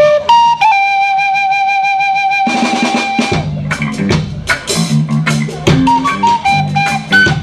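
End-blown flute playing an instrumental intro, holding one long note before the band comes in about two and a half seconds in with a drum kit and guitars, the flute then carrying the melody in shorter notes.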